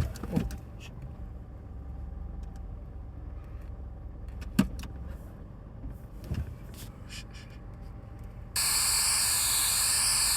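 Low steady rumble with a few faint clicks and one sharp click about halfway through. Then a sudden loud burst of static-like hiss lasts about two seconds and cuts off abruptly.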